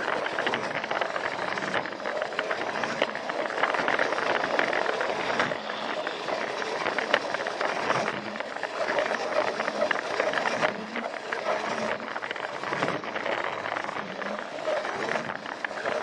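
Battery-powered Plarail toy train running on plastic track: the small motor and gearbox whir steadily, with a constant patter of clicks from the wheels on the rail joints.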